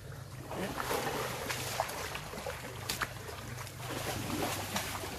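Elephants wading through deep, liquid mud, their feet sloshing and splashing, with a few sharp clicks over a low steady rumble.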